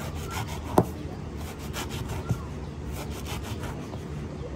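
Knife slicing through thick pomelo rind, a series of short scraping cuts with a sharp click about a second in.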